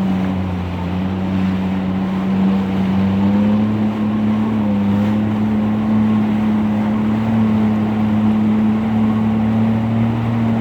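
An engine running at a steady speed, its hum drifting slightly higher in pitch over the last few seconds.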